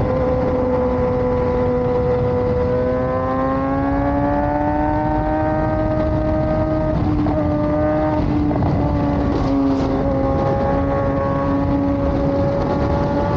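Kawasaki sport bike engine running at highway speed under steady wind and road rush. Its note climbs slowly over a few seconds as the bike accelerates, dips briefly twice around the middle, then holds steady.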